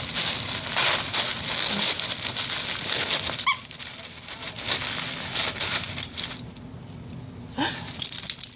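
A dog tearing and rustling gift wrapping paper as it opens a present. A squeaky toy inside squeaks once about three and a half seconds in, and again briefly near the end.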